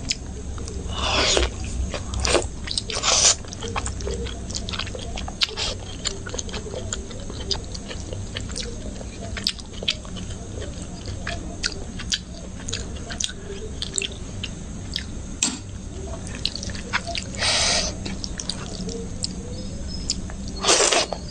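Close-miked chewing of spicy egg curry and rice eaten by hand: steady wet mouth clicks and lip smacks, with a few louder bursts of chewing about a second in, around three seconds in, and twice near the end.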